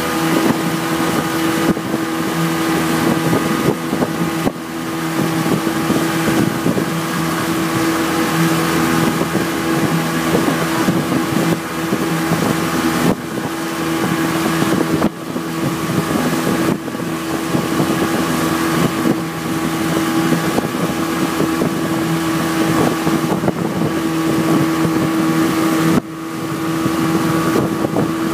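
Tow boat's engine running steadily under way, a constant even hum, over a steady rush of wind and churning wake water.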